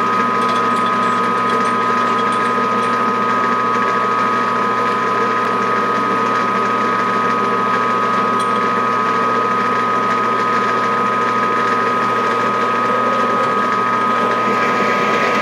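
Metal-working machine tool running steadily with a constant high whine, as a hole is drilled with the feed handle turned by hand.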